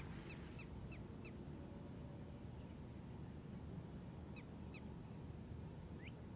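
Faint bird calls: four short chirps in quick succession at the start, two more a little past the middle and one rising call near the end, over a low steady outdoor rumble.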